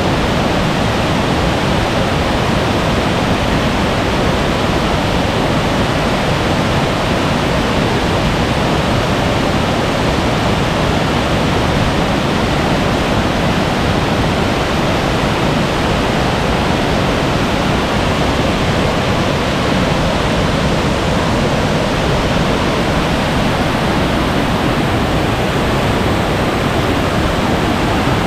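Loud, steady rush of water from a rain-swollen mountain valley stream, mixed with heavy rain.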